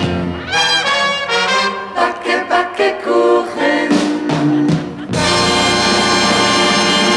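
Show orchestra with a prominent brass section playing short punchy chords and a quick rising run, then holding one long final chord from about five seconds in.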